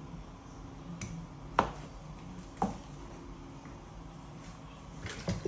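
Kitchen knife chopping on a wooden cutting board: a few sharp, separate knocks, the loudest about one and a half seconds in, another a second later and a couple more near the end, over a faint low hum.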